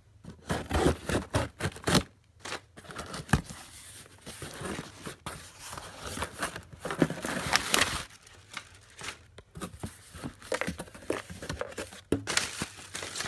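A cardboard shipping box being opened by hand: tape and flaps ripped open in sharp tearing strokes, then packing paper, plastic and bubble wrap crinkling as the items inside are handled.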